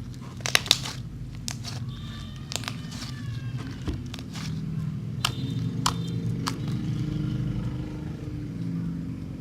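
Slime being pressed and poked by hand, giving scattered sharp clicks and crackling pops over a steady low hum.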